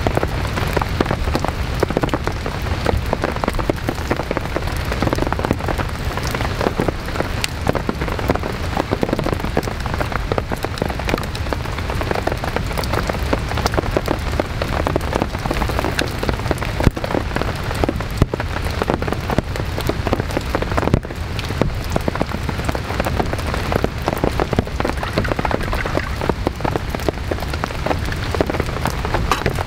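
Heavy rain falling steadily in a forest, thick with many sharp close drop hits.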